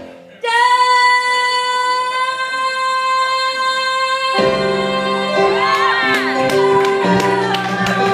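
Woman singing live: after a brief pause she holds one long steady note with nothing under it, then the band's accompaniment comes back in about four seconds in and she sings a short run of notes that bend up and down.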